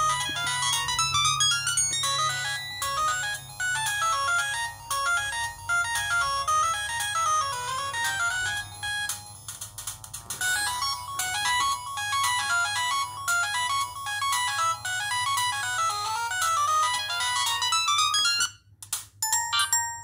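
Samsung SGH-X160 flip phone playing a built-in polyphonic ringtone through its small speaker, a fast electronic melody of quick stepping notes. It cuts off near the end, and after a brief gap the next ringtone starts.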